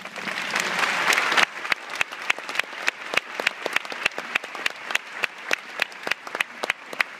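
Audience applause, dense at first and thinning after about a second and a half into scattered clapping, with one steady clapper of about three claps a second louder than the rest.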